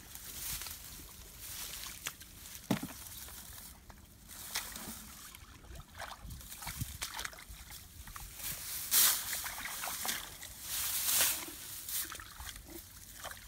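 Muddy water sloshing and splashing in irregular bursts as it is bailed and poured out with buckets, with scattered sharp knocks; the longest, loudest pours come about nine and eleven seconds in.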